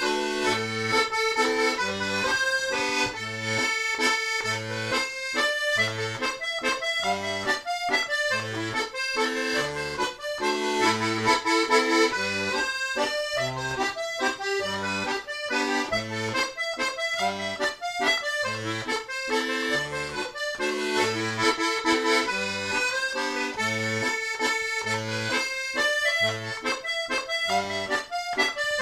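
Small button accordion playing a waltz: a bright reedy melody over a steady bass-note-and-chord accompaniment in three-time.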